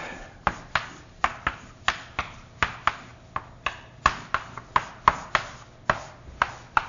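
Quick sharp taps of a writing stick on a lecture board as a graph of nodes and edges is drawn, about four taps a second, starting about half a second in.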